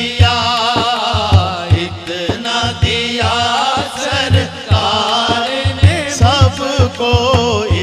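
A man singing an Urdu naat into a microphone, his voice wavering through ornamented, sliding notes, over a steady low rhythmic beat.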